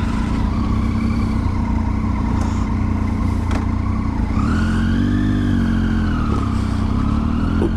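Motorcycle engine running under way with steady wind and road noise, as heard riding. About halfway through, the engine note climbs in pitch, then eases off and rises again, as with the throttle opened and closed.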